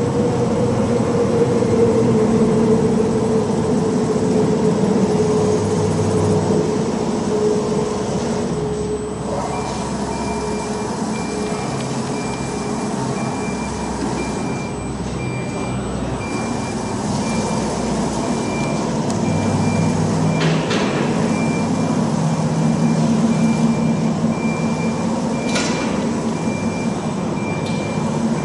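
Large-format CNC router (OMNI 2675) running, its gantry traversing the table with a steady mechanical drive noise. A tone slowly drops in pitch over the first several seconds. From about ten seconds in, a repeated high beep sounds, and two sharp clicks come near the end.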